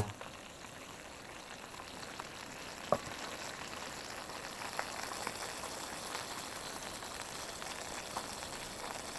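Food frying in a camping pan: a steady sizzle with scattered small crackles and pops, one sharper pop about three seconds in.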